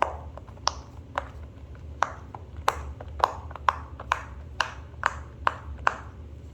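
Silicone pop-it fidget toy being pressed, its bubbles popping one after another with sharp pops, roughly two a second.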